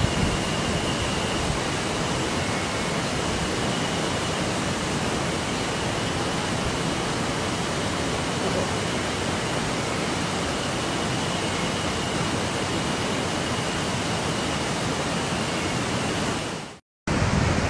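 Steady rushing of flowing river water, an even hiss with a faint high steady tone above it. It fades out and drops to silence for a moment near the end, then comes back.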